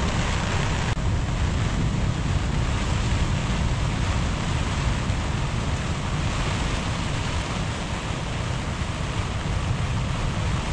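Tropical-storm wind gusting and buffeting the microphone over surf breaking on the beach: a steady, unbroken rush of noise with a heavy low rumble.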